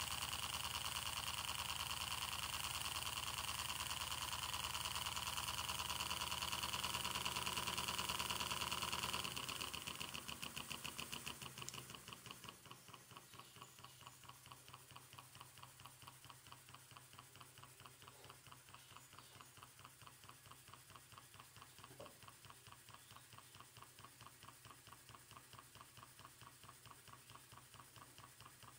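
Twin-cylinder steam engine running with a rapid, even beat. A louder rushing noise over it dies away about ten to twelve seconds in, leaving the engine's quieter, steady beat.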